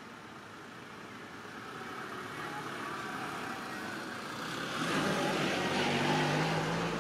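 A motor vehicle's engine approaching on the road, growing steadily louder and loudest from about five seconds in.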